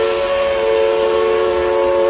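Steam whistle of Heisler No. 6, a geared steam locomotive, blowing one long, steady blast that sounds several notes at once as a chord.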